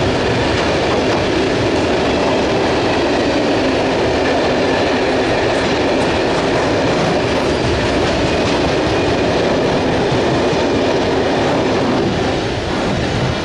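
Freight train of coal hopper wagons rolling past close by, steel wheels clattering over the rail joints in a continuous loud rumble, with the train's rear Class 66 diesel locomotive going by; the sound starts to fade about a second before the end as the train draws away.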